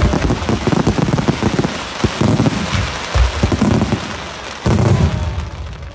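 Fireworks display: a dense, continuous crackle of bursting shells and crackling stars, with heavier deep booms about two, three and five seconds in.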